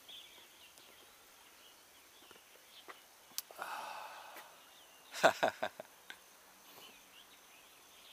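Quiet outdoor ambience with faint bird chirps near the start. A breathy exhale comes about three and a half seconds in, and a quick cluster of short sharp sounds about five seconds in.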